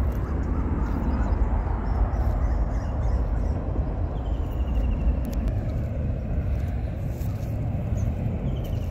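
Steady low rumble of wind buffeting the phone's microphone outdoors, with a short, fast bird trill heard twice, about halfway through and near the end.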